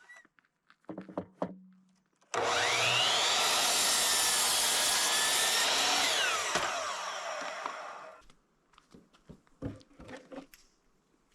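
Electric power saw spinning up with a rising whine, cutting wood for about four seconds, then winding down with a falling whine. Light knocks of lumber being handled before and after.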